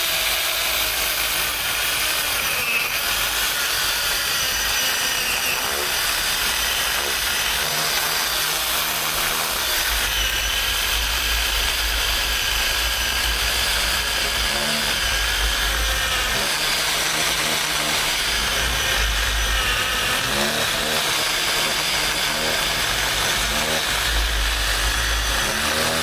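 Small Worx electric chainsaw running and cutting through maple, a steady motor and chain whine that wavers in pitch as the load changes.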